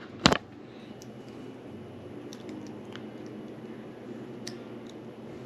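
A sharp knock about a third of a second in, then faint small clicks and ticks of small tablet parts being handled as the camera module is fitted, over a steady low hum.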